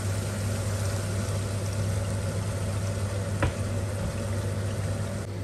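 Goat liver masala curry simmering in a stainless steel pan over a steady low mechanical hum; a single sharp click about three and a half seconds in.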